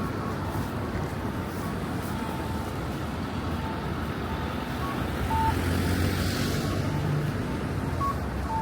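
Busy city street ambience: traffic and crowd noise, with short electronic beeps now and then. A vehicle passes louder about five to seven seconds in.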